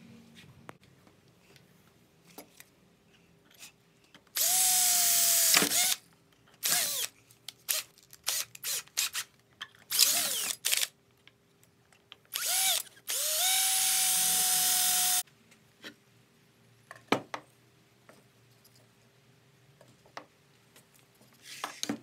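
Hitachi cordless drill boring through a copper bar. The motor spins up with a rising whine and then holds steady, in several bursts of one to two seconds, with short trigger blips between them.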